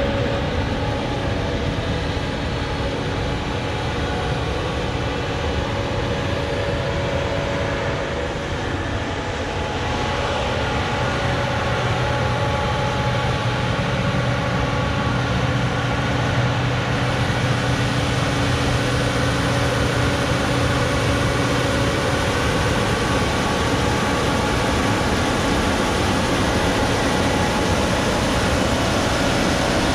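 Case IH 2366 Axial-Flow combine running steadily while harvesting soybeans, a constant machine drone with a low hum that comes in about a third of the way through and fades about two-thirds in.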